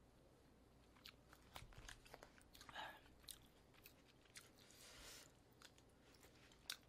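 Faint chewing of rice mixed with spicy beef brisket stew, with scattered small clicks of a spoon against plastic food trays.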